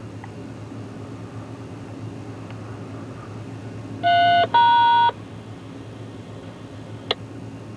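Two short electronic beeps from a railroad radio scanner, each about half a second, the second higher than the first, switching on and off sharply over a steady low hum. A single click comes near the end.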